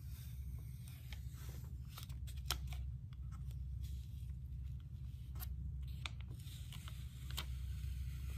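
Adhesive plastic stencil being peeled slowly off painted wood, giving scattered small crackles and ticks as it lets go of paint that is not fully dry, one sharper tick about two and a half seconds in. A steady low hum runs underneath.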